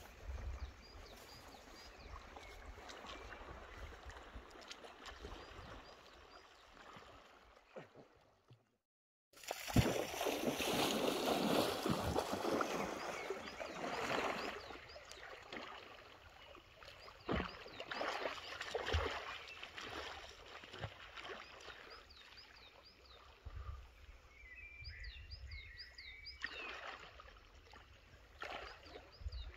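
Water splashing and sloshing as a person swims in a pond, in irregular strokes, loudest in a rough stretch about ten seconds in. The sound drops out completely for under a second just before that.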